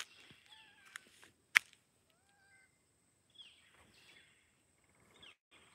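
Quiet outdoor background with a few faint, short chirping calls, some gliding in pitch, and one sharp click about a second and a half in.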